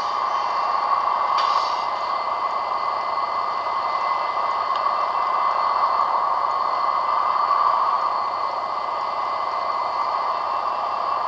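Steady hiss with no engine note in it, and a faint click about a second and a half in.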